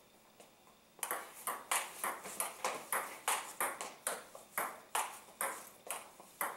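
Table tennis rally: the ball clicking off the paddles and bouncing on the table, starting about a second in and going on at about three sharp hits a second.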